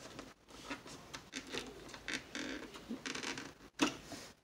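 Push-button switch on a Zenith 7H820 radio being pressed and worked by hand: irregular clicks and scraping, with one sharp click near the end. The switch is not working right.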